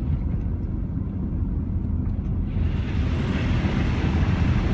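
Low, steady vehicle rumble heard from inside the cab. About two and a half seconds in, a rushing hiss of water joins it as the tyres drive into floodwater covering the road.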